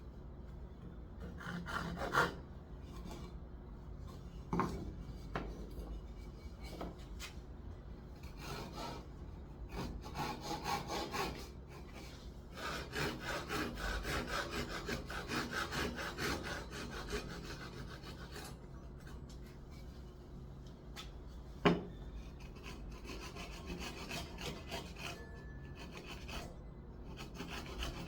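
A hand tool rubbing and rasping on wood in quick rhythmic strokes, loudest for several seconds in the middle, with a few sharp knocks on the timber between passes.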